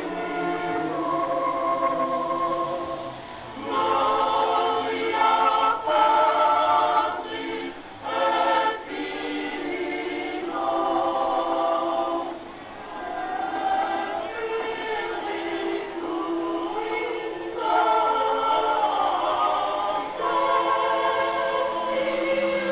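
Choir singing liturgical chant in French at an open-air Catholic Mass, in phrases a few seconds long with short pauses between them.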